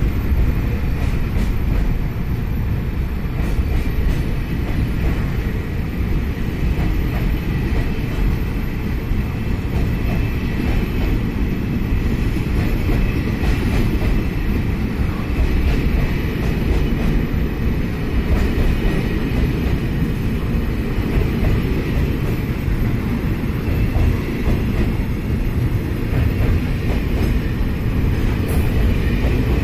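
Freight train's loaded military flatcars and covered box wagons rolling past, a steady rumble of steel wheels on the rails with occasional faint clicks.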